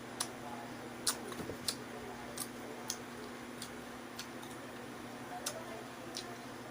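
Soft, sharp ticking clicks at a fairly even pace, about every two-thirds of a second, over a faint steady hum.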